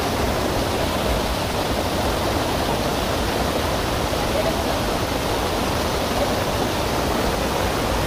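Small waterfall rushing steadily over a rock slab close by, a dense unbroken hiss of white water.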